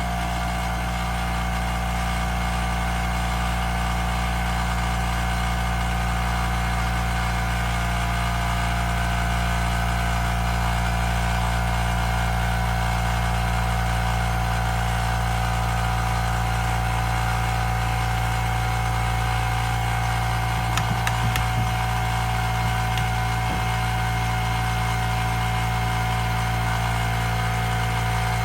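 Bauer 20V cordless brushless 1.6-gallon air compressor running steadily with an even motor-and-pump hum, building tank pressure; relatively quiet.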